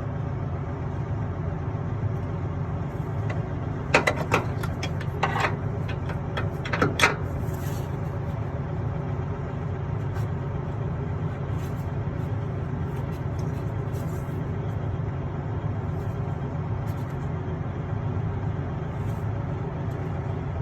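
Steady low engine hum, with a cluster of sharp metallic clicks and knocks between about four and seven seconds in, and a few fainter ticks later.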